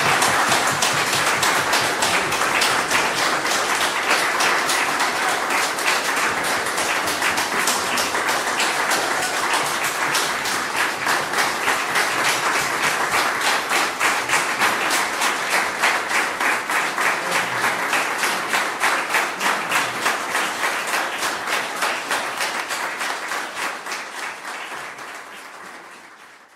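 Audience applause at the end of a concert, dense clapping that settles into rhythmic clapping in unison about ten seconds in, then fades out over the last few seconds.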